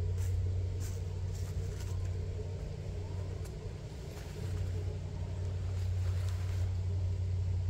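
A steady low motor hum, a little weaker in the middle, with a few light knocks of wood as boards are handled inside a wooden crate.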